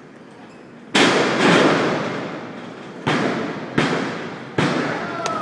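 Wrestlers' bodies slamming onto the canvas of a wrestling ring, five heavy booms each followed by a long echo in the hall. The first comes about a second in and is the loudest.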